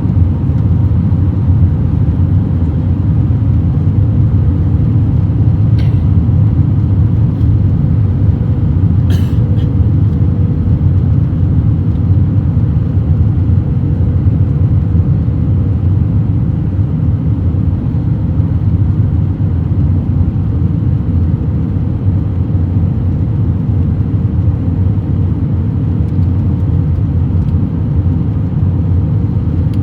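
Steady low rumble of cabin noise aboard an Airbus A321-200 airliner, with a faint steady hum over it and a couple of faint clicks about six and nine seconds in.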